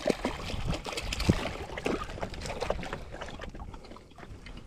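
Water splashing and lapping around a kayak, with scattered light knocks and clicks against the hull, busiest early and tapering off.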